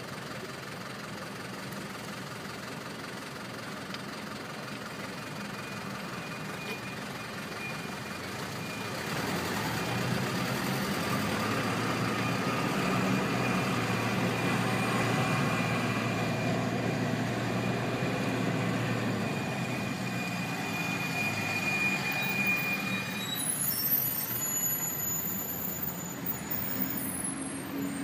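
City street traffic, getting louder about nine seconds in as an engine runs close by, with a thin steady high whine over it for several seconds.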